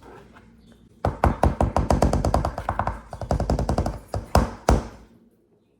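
A short burst of music with a fast, rhythmic beat of sharp strikes. It starts suddenly about a second in and cuts off sharply near the end.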